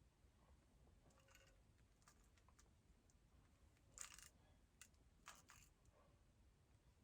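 Faint, irregular clicks and clacks of a Moyu WeiLong WR M 2020 speedcube's layers being turned during a solve. The sharpest clacks come in a cluster a little past the middle.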